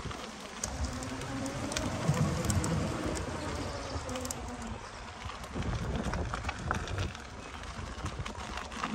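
Wind buffeting the microphone and a low rumble from riding an electric unicycle over a gravel trail, with a faint wavering tone in the first half.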